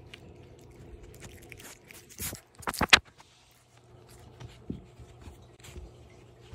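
Puppies chewing and tugging a rope toy on carpet: scattered small scrapes and clicks, with a louder burst of scraping and rustling about two to three seconds in.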